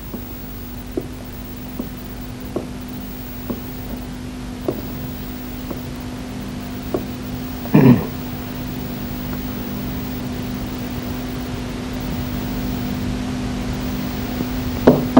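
Steady hum and hiss of an old film soundtrack, with faint ticks about once a second and one short, louder sound about eight seconds in.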